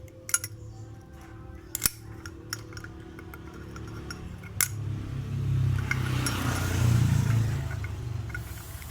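Sharp metallic clicks and clinks of circlip pliers and a steel circlip being worked onto a scooter's rear gear shaft, a few separate strokes. In the second half a rushing noise with a low hum swells, loudest about a second before the end, and fades.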